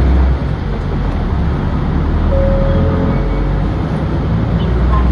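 Interior running sound of a 2007 Nissan Diesel Space Runner RP city bus moving slowly on a snowy street: the diesel engine's low drone with road noise, and a brief steady whine a little over two seconds in.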